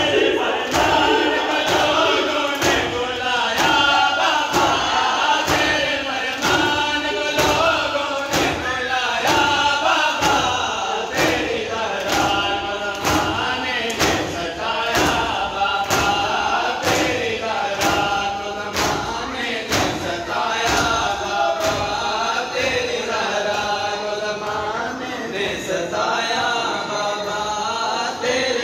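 Group of Shia mourners chanting a Muharram mourning chant (noha) in unison while beating their chests with open hands (matam). The slaps land together in a steady beat, about one and a half a second, under the chant.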